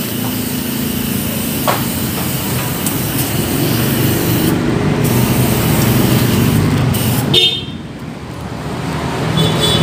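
Disinfectant spray bottle hissing as it is sprayed in long bursts over a wire dog cage, cutting off about seven and a half seconds in, under a steady hum of road traffic.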